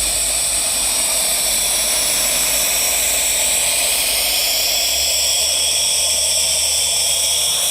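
Steam boiler under about 75 pounds of pressure, hissing loudly and steadily as steam escapes.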